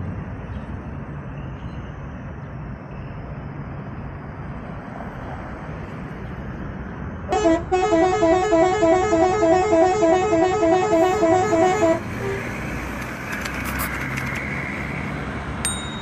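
Steady vehicle rumble, then about seven seconds in a bus telolet horn, a multi-tone musical air horn, plays a loud rapid tune of repeating notes for about four and a half seconds and cuts off abruptly.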